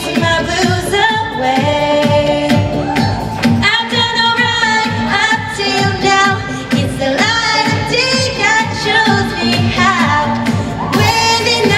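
Youth show choir singing an upbeat song with instrumental accompaniment.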